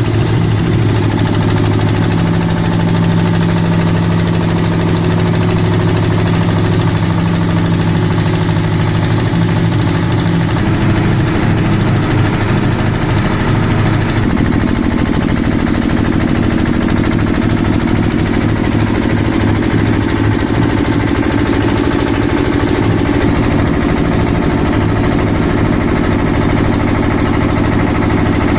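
Diesel engine driving a twin-cylinder air compressor pump, running steadily.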